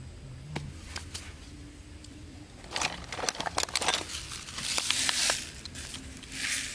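Rustling and crackling, with scattered sharp clicks, busiest from about three seconds in until five and a half.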